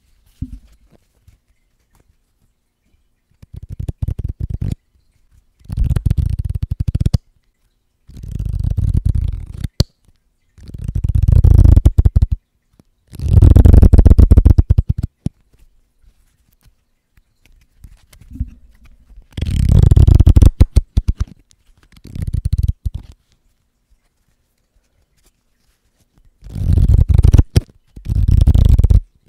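A deck of playing cards riffled with the thumb close against a microphone: about nine quick flurries of flicking cards, each a second or two long, with short pauses between.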